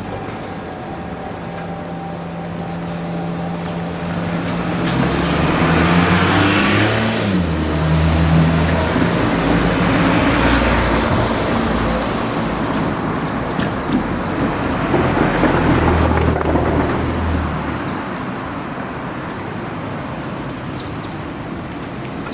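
Road traffic: an engine hums steadily and shifts pitch, while motor vehicles pass three times, about 6, 10 and 16 seconds in.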